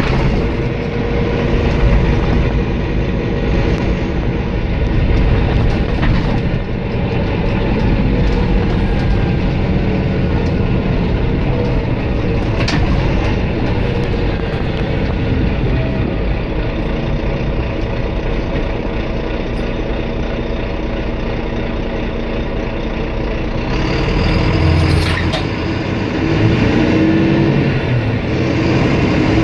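Volvo B9R coach's six-cylinder diesel engine running under way, heard from inside the passenger cabin with a steady low road rumble. About 25 seconds in there is a brief hiss, and the engine note then shifts and climbs toward the end.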